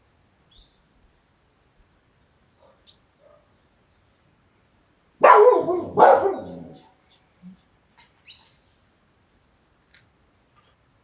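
A dog barks twice in quick succession, about five seconds in, loud against an otherwise quiet background.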